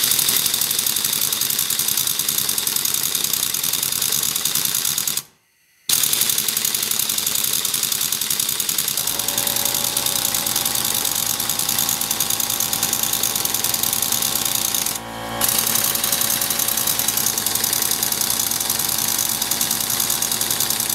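Air impact wrench hammering continuously as it drives a caliper bolt. It stops for a moment about five seconds in and again briefly around fifteen seconds. From about nine seconds on, a steady whine joins the rattle. The bolt is going in slowly, which the mechanic puts down to the hot caliper pin.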